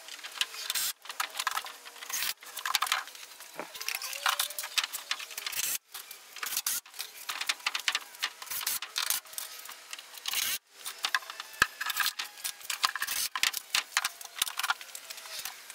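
Busy clicking, rattling and rustling of hands handling tools and small hardware at a pegboard, broken by a few sudden short gaps.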